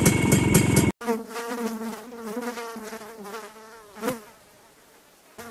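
BSA Bantam's single-cylinder two-stroke engine running, cut off abruptly about a second in. Then a housefly buzzing, its pitch wavering, with a brief louder buzz near four seconds before it fades.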